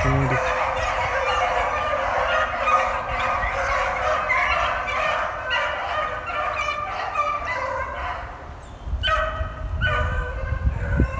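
Pack of beagles baying in full cry, many voices overlapping as they run a rabbit. The chorus dips about eight seconds in, then swells again.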